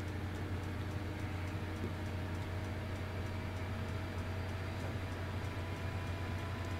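Steady low electrical hum with a few faint steady tones above it: the room tone of the voiceover recording, with no lathe sound in it.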